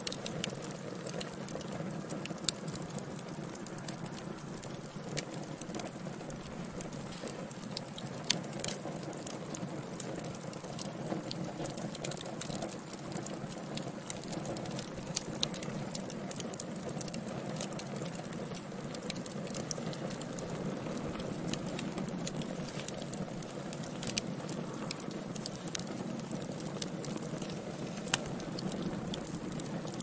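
Wood fire burning in a fireplace: a steady low noise of the flames with frequent sharp crackles and pops scattered irregularly throughout.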